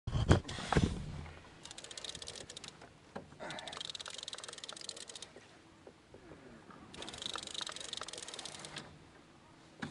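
Fishing reel clicking rapidly in three runs of a second or two each, after a couple of knocks of handling gear.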